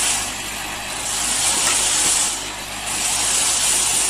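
Pneumatic dropper-bottle filling and capping machine running: a loud, continuous compressed-air hiss that eases off briefly about every two seconds as the machine cycles, over a low motor hum.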